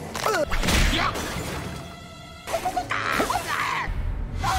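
Cartoon soundtrack: music with crashing sound effects, with sudden hits in the first second and again about three seconds in.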